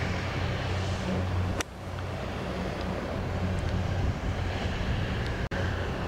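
A golf iron strikes a ball out of a fairway bunker with one sharp click about one and a half seconds in, over a steady low engine drone.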